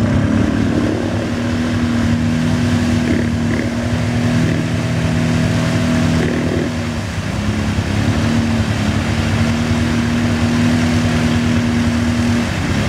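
Quad bike (ATV) engine running at steady high revs as it churns through deep mud and water, throwing up spray. About seven seconds in the revs drop briefly, then climb back and hold.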